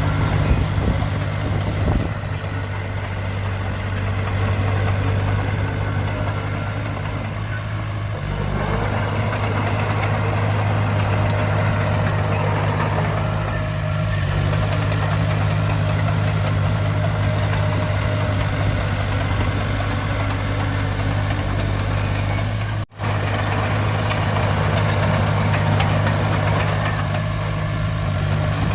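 Heavy earthmoving machinery's diesel engine running steadily at a low, even speed, with a brief break in the sound about two-thirds of the way through.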